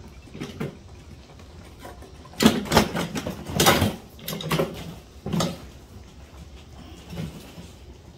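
Cardboard appliance boxes and a metal hand truck knocking and clattering as the loaded hand truck is moved, in a burst of several knocks and scrapes from about two and a half to five and a half seconds in, loudest near the start of the burst.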